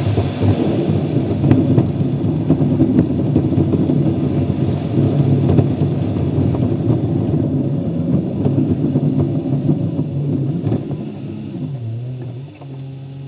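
A car driving, heard from a camera on its front grille: a steady rumble of engine, tyres and wind. Near the end it slows and the rumble eases into a steady low engine hum as the car comes to rest.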